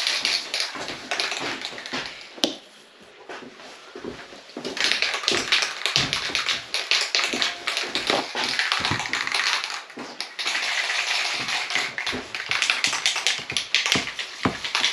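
Blue paper shop towels rubbing and rustling over a boat windshield as it is dry-wiped, a scratchy hiss full of small ticks and taps. A sharp click comes about two and a half seconds in, followed by a quieter lull of about two seconds before the wiping picks up again.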